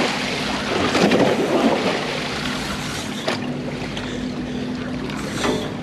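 Wind buffeting the microphone and sea water washing against a moored boat, over a steady low hum from the boat, with a few short clicks.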